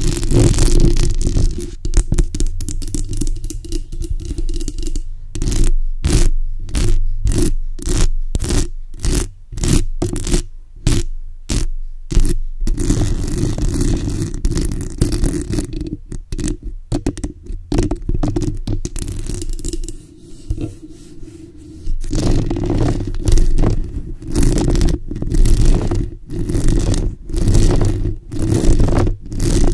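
Long fingernails scratching and rubbing directly on a bare microphone's metal mesh grille, picked up loud and close with a heavy low rumble. Stretches of continuous rubbing alternate with runs of separate short strokes, about two a second, the longest run starting about five seconds in and lasting some seven seconds.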